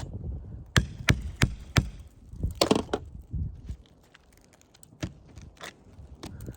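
Hand tool knocking and prying under an asphalt roof shingle to work roofing nails loose. About a second in come four sharp knocks in quick succession, then a short scrape, then a few lighter clicks.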